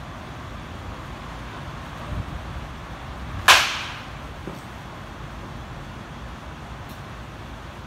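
A baseball bat hits a pitched ball once, about three and a half seconds in: a single sharp crack with a brief ring-out, over a steady low outdoor hum.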